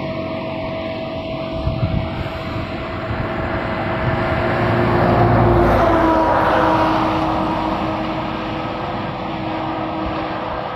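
A passing engine with a steady hum, growing louder to a peak about six seconds in, dropping slightly in pitch, then fading.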